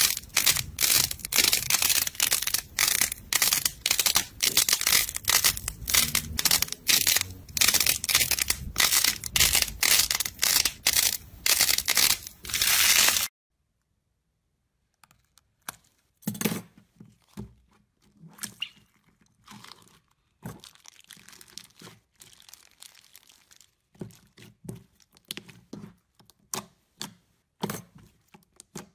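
Dense, rapid crackling and popping as fingers press and squeeze a sheet of joined yellow balls, which stops abruptly about 13 seconds in. After a short pause come quieter scissor snips through a plastic bag of purple glitter slime, then soft, scattered crackles as the slime is stretched by hand.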